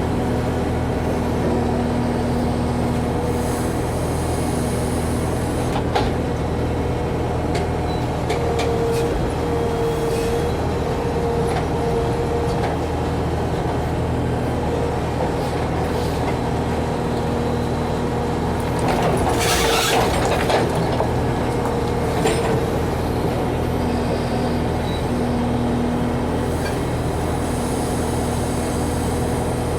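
Backhoe's diesel engine running steadily, with a whine that comes and goes over it. There is a louder rush of noise about two-thirds of the way through.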